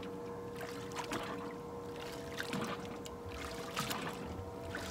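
Water lapping and trickling against the hull of a bass boat, with a steady faint hum and a few light knocks.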